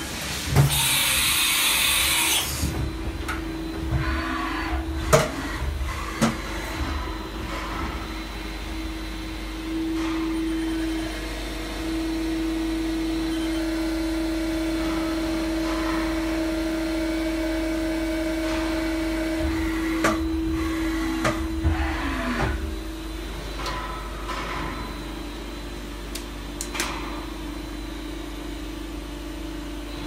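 CNC vertical milling machine's spindle spinning a stirrer in a glass of coffee: a steady motor whine that winds down with a falling tone about 22 seconds in. A loud hiss lasts about two seconds near the start, and clicks and knocks come throughout.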